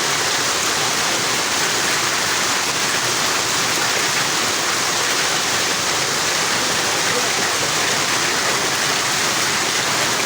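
Heavy rain falling with hail, a loud, steady, even hiss of pouring water.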